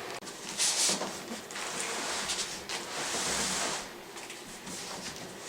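Rustling and scraping of a cardboard shipping box and its packing as a Yamaha DGX-640 digital piano is pulled out, in two longer hissy bursts with a few light knocks.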